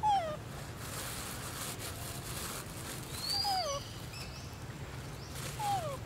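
Macaque giving three short falling calls, near the start, about halfway and near the end, with a brief higher rising chirp just before the second.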